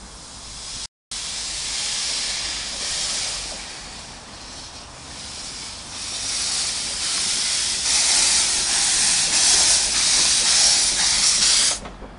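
Steam hissing from a small Wren-class narrow-gauge steam locomotive as it moves off, steam blowing from the cylinder drain cocks. The hiss swells and fades, is loudest in the last few seconds, then cuts off suddenly near the end; the sound drops out briefly about a second in.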